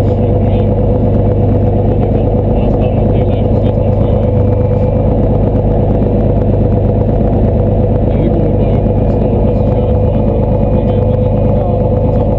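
Slingsby T-67 Firefly's piston engine and propeller running steadily at taxiing power, heard from inside the cockpit.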